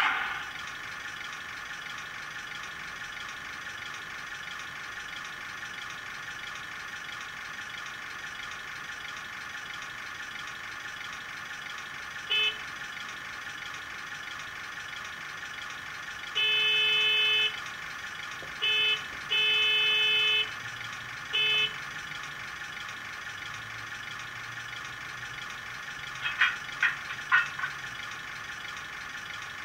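DCC sound decoder in a model Ruston 48DS diesel shunter, playing a steady diesel engine idle through the model's small speaker. Over the idle come short horn toots: one about twelve seconds in, then a cluster of short and longer toots between about sixteen and twenty-two seconds. Near the end there is a quick run of clanks, the decoder's coupling and uncoupling sound.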